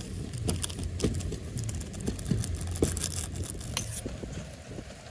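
Seasoning sachet crinkling, then a plastic spoon stirring instant noodles in an aluminium camping pot, with many small scrapes and clicks against the pot, over a low steady rumble.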